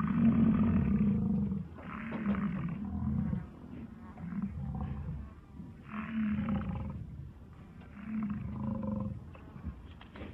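A large animal calling repeatedly: low, drawn-out calls about a second long, one every two seconds or so.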